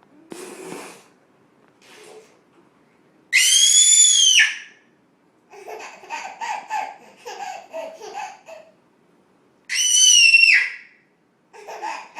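A baby laughing hysterically: two loud, high-pitched shrieks about six seconds apart, with a run of pulsing giggles between them and more near the end. A short breathy hiss opens it.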